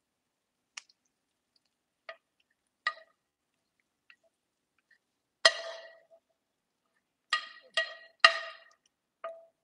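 A metal spoon clinking and scraping against a non-stick frying pan as the tempering (tadka) is spooned out. There are about nine separate clinks, each with a short ring, spaced irregularly, with three quick ones close together near the end.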